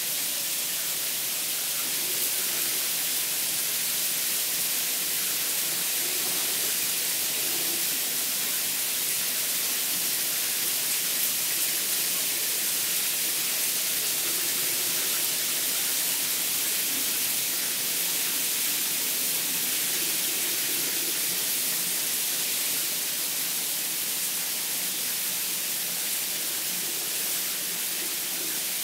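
Running shower spray: a steady hiss of water pouring onto tiled walls.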